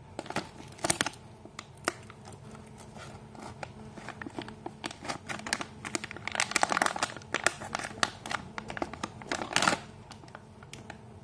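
Plastic packaging pouch crinkling and crackling as it is handled and a hair roller is pulled out of it, busiest about six to seven and a half seconds in and again just before ten seconds.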